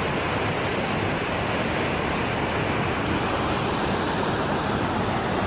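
Steady rushing of water pouring out of a hydroelectric powerhouse's outflow into the river below.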